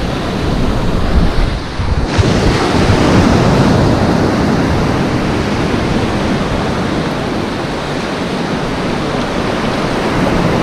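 Sea surf washing and foaming over a shallow reef flat around the wading angler's legs, with wind buffeting the microphone. The rush grows fuller and louder about two seconds in.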